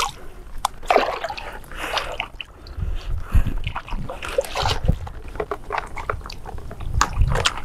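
Shallow water splashing and sloshing in irregular bursts as a person wades through it and reaches into it by hand, with a few dull low thumps in the second half.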